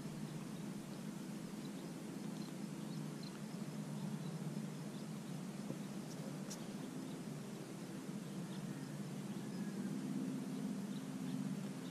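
Quiet riverbank ambience: a steady low hum with faint, scattered short high chirps, and one sharp click about six and a half seconds in.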